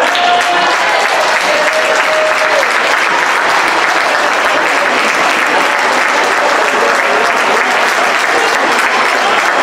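Crowd applauding, steady clapping throughout.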